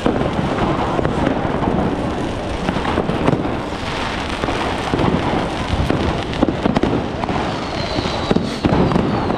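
Many consumer fireworks and firecrackers going off all around at once: a continuous, dense crackle of sharp bangs. A high whistle sounds over them near the end.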